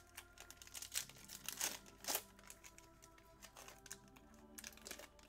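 Foil trading-card pack wrappers crinkling and tearing as hobby packs are handled and opened, in several short crinkles over soft background music.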